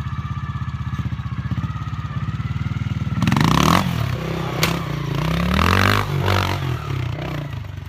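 Single-cylinder trials motorcycle engine ticking over steadily, then revved hard in several quick surges from about three seconds in as the bike hops onto a concrete block and climbs a steep dirt bank. A sharp knock of the bike striking the block comes between the surges.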